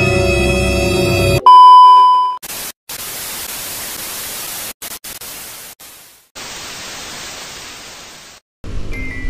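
Background music cuts off about a second and a half in to a loud, steady test-tone beep. The beep gives way to TV static hiss that cuts in and out several times, and music returns near the end.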